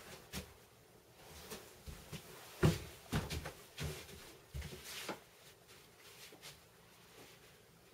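A series of irregular light knocks and short rustles, the loudest about a third of the way in, then quieter.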